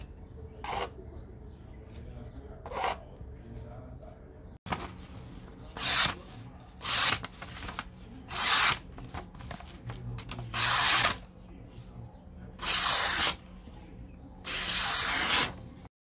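Small XC75 carbon-steel knife blade cutting through braided cord on a plastic cutting mat, two short crunching cuts. About five seconds in, six longer slicing strokes follow as the blade draws through a thin white sheet, most likely paper, in a sharpness test.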